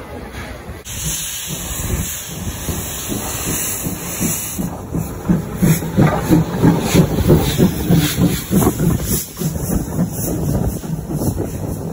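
Steam locomotive letting off a loud hiss of steam, then chuffing with even exhaust beats, about two to three a second, as it moves off slowly.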